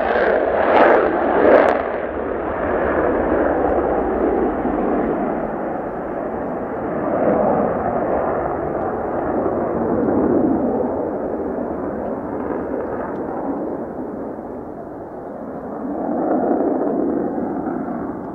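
Mitsubishi F-2 fighter's single F110 turbofan in afterburner on takeoff: a loud jet roar with a couple of sharp crackles in the first two seconds. The roar then turns duller and slowly fades as the jet climbs away, swelling once more briefly near the end.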